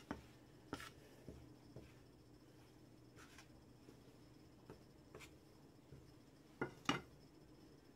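Faint scraping of a utensil stirring water into flour in a bowl, mixing dumpling dough, with a few light taps, two close together near the end.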